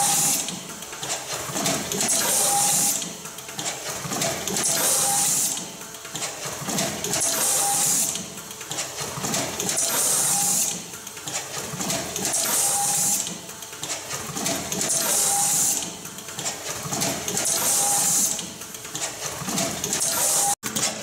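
J.A.M. CPR ZERO ST WP fully automatic wire cut, strip and crimp machine running through its cycles, about one every two and a half seconds. Each cycle brings about a second of loud, high hiss and clatter, with a short whine in between. The sound cuts out briefly near the end.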